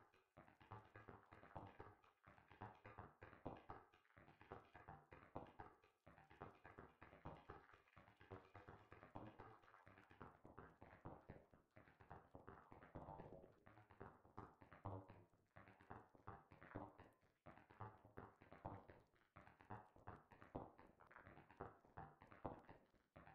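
Faint electronic percussion: short pitched clicks and plucks in a quick, uneven patter, a synth part played through a grain delay.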